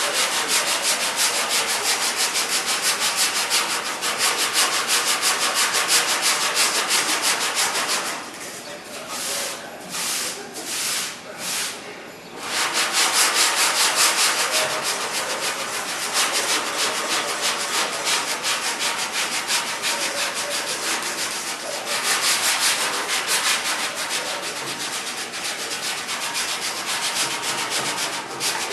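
Hand sanding: abrasive paper rubbed back and forth over a surface in quick repeated strokes. A little past a third of the way in it slows to four separate short strokes about a second apart, then goes back to steady rapid sanding.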